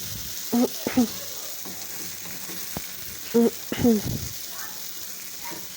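Garlic and coriander frying in hot oil for an Egyptian ta'leya, a steady sizzle. Brief voices come in twice, and there is one sharp click near the middle.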